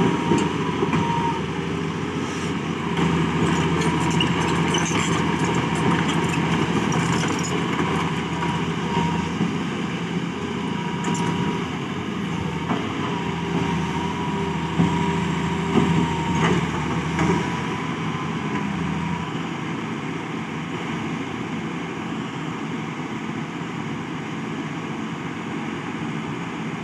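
Hitachi excavator's diesel engine running, with a steady hum and a higher whine that waver in pitch and level for most of the time, then settle steadier and a little quieter about two-thirds of the way in.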